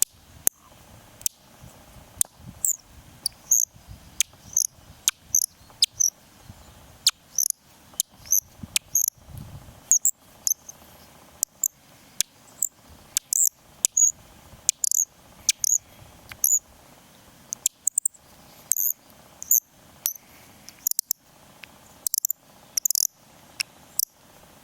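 Audubon bird call, a wooden body with a metal screw turned against resin, twisted in short strokes to make a string of high squeaky chirps. The chirps come about one to two a second, each starting with a sharp click.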